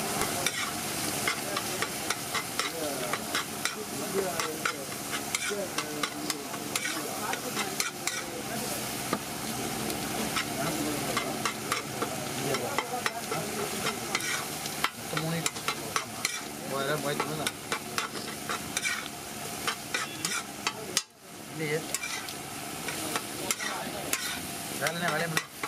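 A metal spatula scraping and clicking rapidly against a hot iron tawa as eggs are chopped and stirred, over the sizzle of the eggs and fish frying. The sound drops out briefly about three quarters of the way through.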